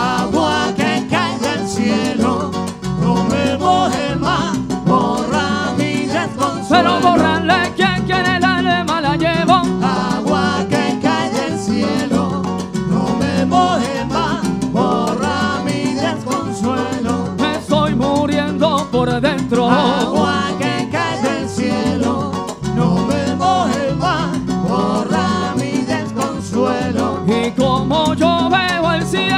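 Live salsa orchestra playing, with congas and a stepping bass line under the melody.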